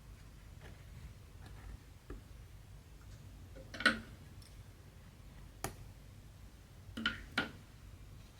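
Needle and thread working through stretched cross-stitch fabric: a few soft, scattered taps and pops. The sharpest comes about four seconds in, another follows shortly after, and a quick pair comes near the end.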